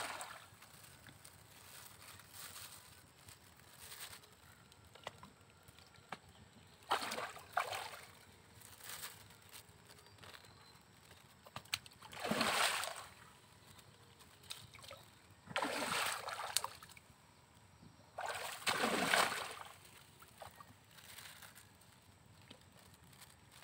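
Toman (giant snakehead) fish splashing and thrashing at the pond surface in separate bursts every few seconds.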